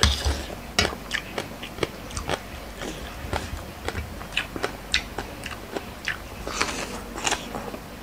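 A person chewing crisp lotus stems and raw shrimp from a spicy Thai lotus-stem salad, close to the microphone. It is a run of sharp, irregular crunches, several a second, with the loudest bite right at the start.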